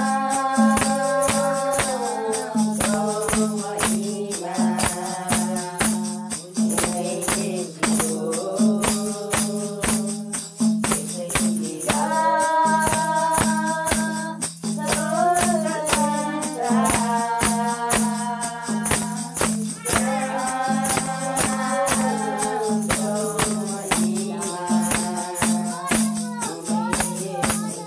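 A small group singing a Christian worship song together, with a tambourine jingling on a steady rhythm and an acoustic guitar accompanying.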